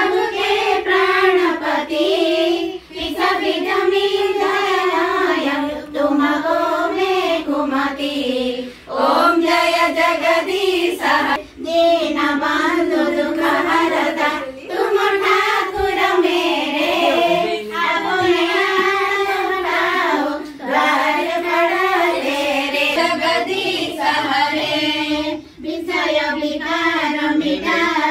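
A group singing a song together in high voices, in unison, in phrases of a few seconds with short breaks between them.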